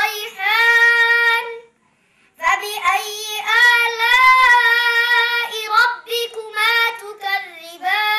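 A boy's solo voice chanting in long, held melodic phrases with no accompaniment, breaking off briefly for breath about two seconds in.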